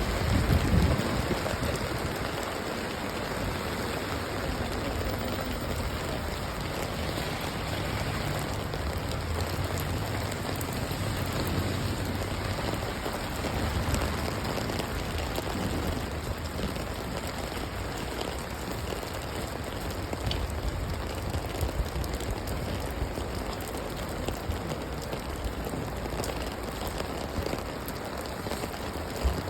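Steady rain falling on hard surfaces, an even hiss with a low rumble underneath.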